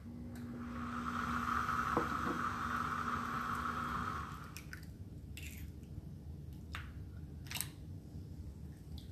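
A steady hiss for about four seconds, then a few light clicks as a raw egg is pulled open over a small glass bowl.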